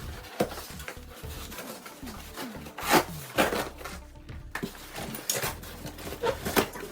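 Background music, with scattered knocks and rubbing of wooden parts being handled; the loudest knock comes about three seconds in.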